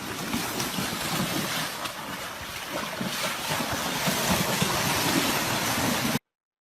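Wind blowing on the microphone over rushing water, a rough steady noise, cutting off abruptly about six seconds in.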